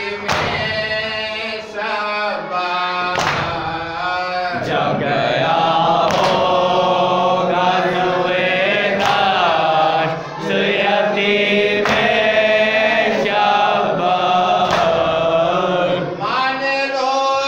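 A group of men chanting an Urdu noha together in a mourning melody, with sharp slaps of hands on chests (matam) keeping the beat roughly once a second.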